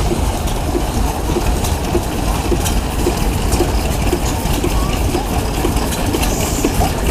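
Antique stationary engines running at a steady pace, a low rumble with a regular tick about twice a second, over crowd chatter.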